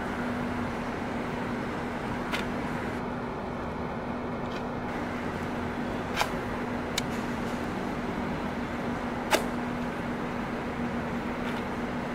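Steady background hum with a handful of sharp, isolated clicks, the loudest about nine seconds in: stiletto heels tapping on stone paving.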